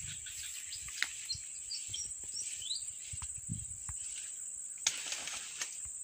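A steady high-pitched insect buzz, with a few short high bird chirps a second or two in and a couple of sharp clicks, one about a second in and one near five seconds.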